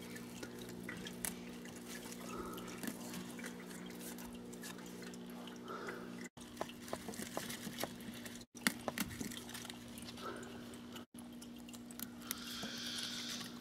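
Aerogarden Harvest hydroponic unit's water pump running, a steady low hum with a faint trickle of water. Over it come light rustles and small clicks as stevia plants are handled, with a louder leafy rustle near the end.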